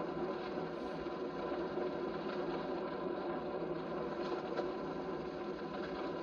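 Jeep engine running steadily, an even rumble with no distinct knocks or shots.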